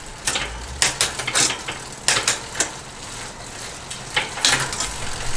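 Road bike drivetrain turning on a work stand: the chain runs over the MicroShift R8 chainrings and cassette with irregular sharp clicks and rattles.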